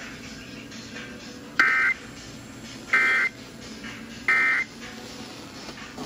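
Three short electronic data bursts about a second apart, each a harsh two-tone buzz: the Emergency Alert System end-of-message code played through an alert radio's speaker, signalling that the emergency alert broadcast has ended.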